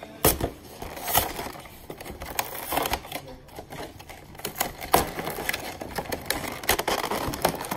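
Cardboard box and clear plastic blister packaging of a trading-card collection box being handled and pried at, giving irregular clicks, taps and crinkles of plastic. The loudest clicks come just after the start and about five seconds in.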